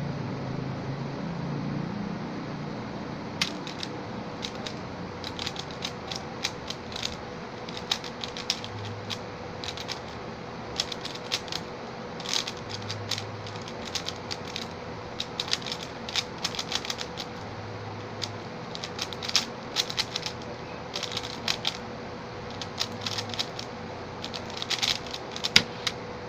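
Stickerless 3x3 speed cube being turned fast in a speedsolve: rapid bursts of plastic clicking as the layers are turned, starting about three seconds in. A faint steady hum runs underneath.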